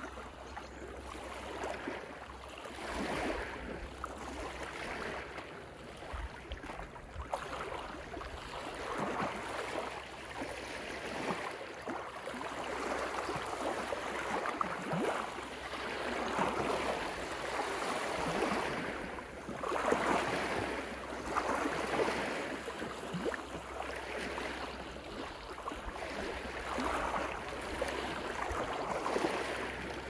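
Small ocean waves washing in over a rocky, seaweed-covered shore, splashing and lapping among the rocks in uneven swells every second or two, with the loudest wash about twenty seconds in.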